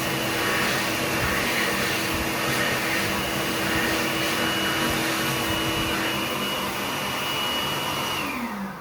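Kuaierte K2201 hand dryer running at full power, a loud steady rush of air with a high motor whine. Near the end it cuts out and the whine falls in pitch as the motor spins down.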